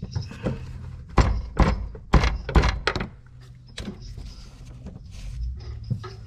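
A quick run of about six sharp knocks and thuds from a fuel-system fitting under the car being pushed and knocked by hand to seat it fully. The knocks start about a second in and last about two seconds, and a couple of fainter knocks follow.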